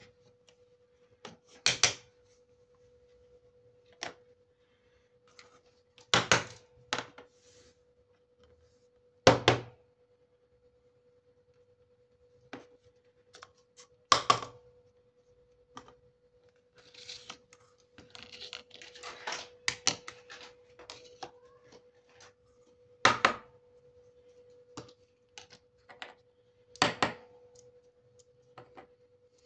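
Small plastic toy kitchen pieces being set down one at a time on a tabletop: sharp, separate clacks a few seconds apart, with a stretch of quicker clattering and rattling a little past halfway. A faint steady hum runs underneath.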